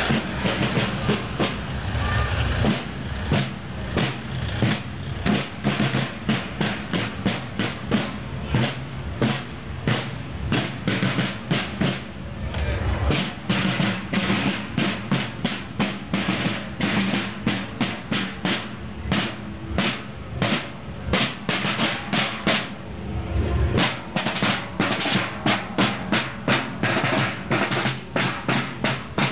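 Marching field drums (side drums) beating a steady parade cadence, with rolls between the strokes.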